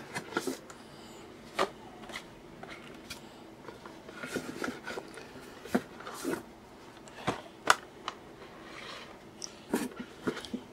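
Cardboard-boxed vinyl figures being lifted out of a cardboard shipping case and set down on a table one by one: scattered light knocks and rustles of cardboard.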